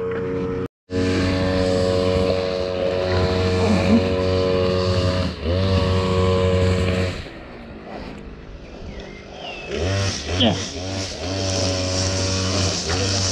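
An engine running steadily at a fairly constant pitch. It cuts out for a moment just under a second in, sags in pitch briefly in the middle, fades down for a couple of seconds, then comes back up near the end.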